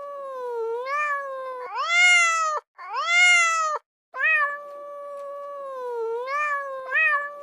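Kitten meowing in long, drawn-out, wavering mews, with two louder, higher meows back to back about two to four seconds in.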